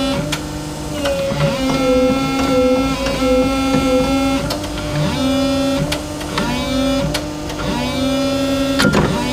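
Background music: an electric guitar playing held notes with slides between them.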